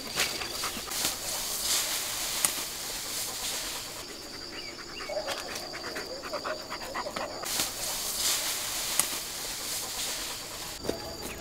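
German shepherd panting, quieter for a few seconds in the middle.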